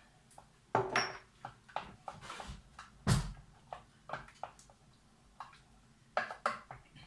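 Kitchen handling clatter: a series of knocks and clicks from containers and utensils being moved, with a short hiss and then the loudest knock about three seconds in.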